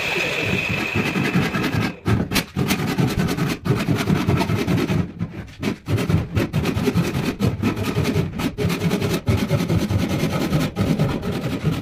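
Hand saw cutting through a wooden board in repeated back-and-forth strokes, one stroke about every half second to second.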